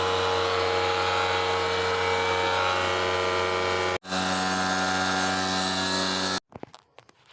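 DeWalt D2002M-WK pancake air compressor running with a steady motor hum, then cutting off abruptly about six seconds in.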